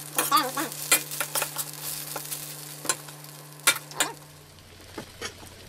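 Corn kernels sizzling in butter in a steel wok while a metal spatula stirs them, with sharp clicks and scrapes of the utensil on the pan; the stirring clicks thin out near the end. A steady hum runs underneath and drops lower about three-quarters of the way through.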